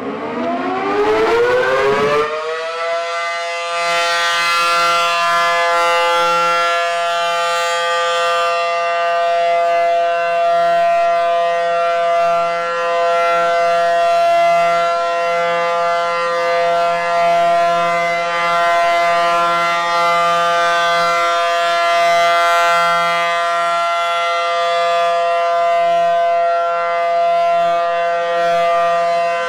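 Federal Signal Model 500 single-sided rotating air raid siren winding up, its pitch rising over the first two to three seconds, then holding a steady, loud, high-pitched wail. The level swells and dips slightly as the horn turns toward and away from the microphone, with little modulations in the tone.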